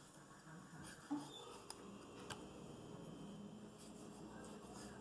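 Faint kitchen handling noises over quiet room tone: a few light clicks and taps, about one and two seconds in, as cut mango and utensils are moved.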